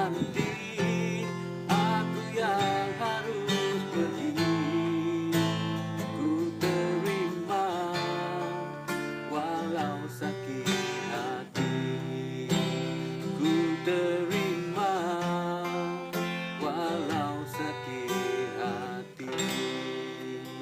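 Acoustic guitar strummed in an unplugged band arrangement, with a melody line wavering above the chords.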